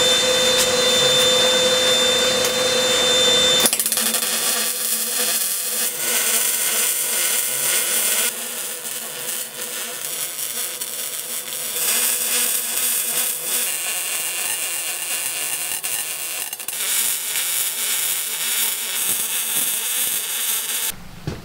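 Wire-feed arc welding on the steel frame of a homemade tire power hammer: a steady crackle laid down in several runs with short changes between them, as the tack welds are welded out in full. The first few seconds hold a steady, even whine.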